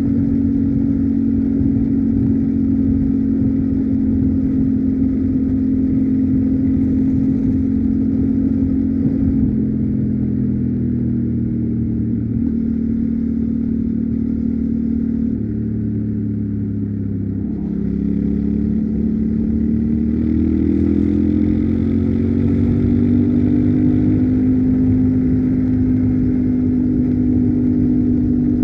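Yamaha Ténéré 700's parallel-twin engine on its stock exhaust, running under way. It holds a steady pitch for about ten seconds, falls in pitch as the rider eases off through the middle, dips briefly, then rises again as he accelerates and settles.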